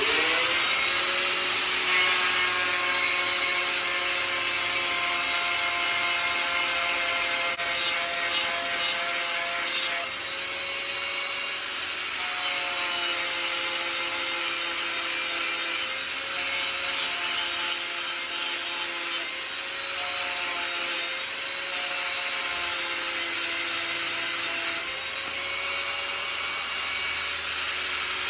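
A handheld electric power sander spins up and runs, sanding down the welds and metal filler on a welded metal bracket. Its motor tone shifts a little several times as it is worked against the metal.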